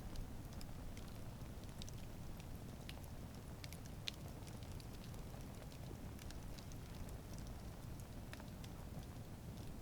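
Wood campfire burning: a steady low rumble of flames with scattered sharp crackles and pops from the burning wood, one louder pop about four seconds in.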